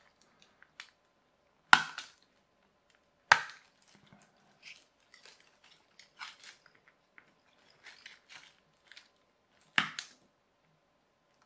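Craft knife cutting moulded plastic toy-kit parts free from their sprue frame: three loud, sharp snaps, two close together in the first few seconds and a third near the end, with quieter plastic clicks and rattles in between.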